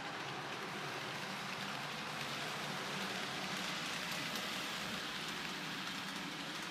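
N gauge model train running on the layout track: a steady rolling hiss and rattle of its wheels on the rails, a little louder around three to four seconds in as it passes close.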